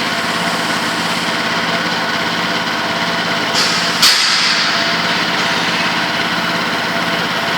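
A machine's motor running steadily with an even hum, with two sharp clicks about halfway through.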